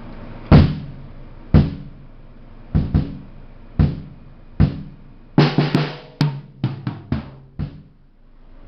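Bass drum of a Tama Imperialstar kit, fitted with an Evans EG4 head, kicked for a sound check. It starts with single beats and pairs spaced about a second apart, then a faster run of strokes from about five seconds in.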